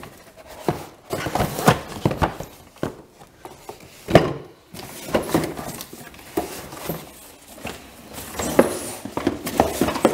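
A cardboard box being handled and a metal pull-up bar slid out of it across a tiled floor: irregular scraping with sharp knocks.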